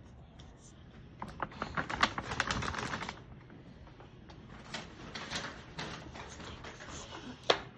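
Slime being squished and poked by hand, making rapid sticky clicks and pops in two runs, the first starting about a second in and the second about five seconds in, with one sharp pop near the end.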